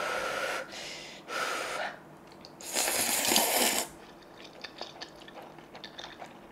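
Water being poured into instant cup noodle cups in three short pours, the third the longest and loudest, followed by a few light clicks and taps.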